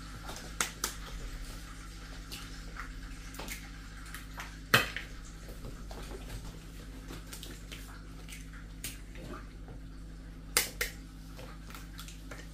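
Eggs being cracked open by hand over a plastic mixing bowl: scattered sharp shell cracks and taps, the loudest about five seconds in and a quick pair near the end, over a faint steady hum.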